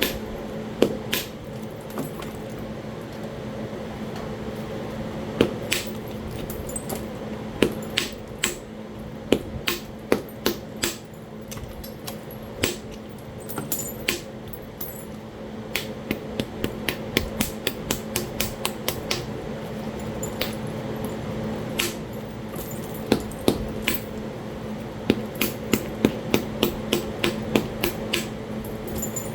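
Flintknapping Talahata quartzite: sharp clicking strikes of stone on stone, scattered at first, then quick runs of lighter taps at about three or four a second.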